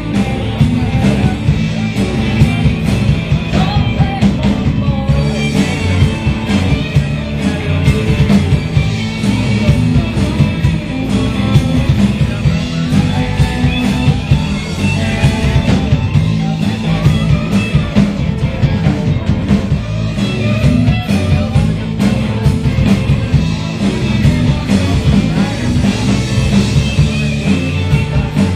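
Live rock-and-roll band playing loudly, a full band with electric guitar.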